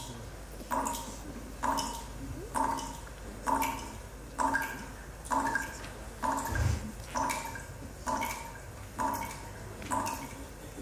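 Soundtrack of evenly spaced pulses, each a sharp onset that rings briefly, coming a little more than once a second over a low steady hum. A soft low thump comes about two-thirds of the way through.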